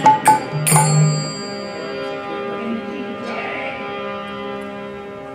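Tabla playing its last few strokes, the bass drum ringing briefly, then a harmonium's held notes fading out as the piece ends.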